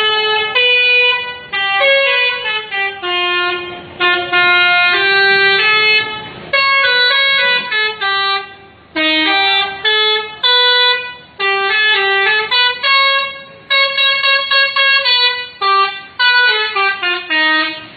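Bus 'telolet' multi-tone musical horn playing a tune, loud: about eight quick phrases of short horn notes, each phrase broken off by a brief gap before the next.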